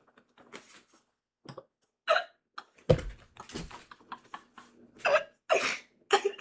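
A man's short, breathy vocal bursts, irregular and a second or so apart, starting about two seconds in, with a low thump about three seconds in.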